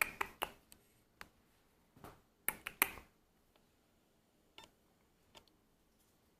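A few scattered light clicks and taps, with a small cluster of louder ones about two and a half to three seconds in, over a quiet room.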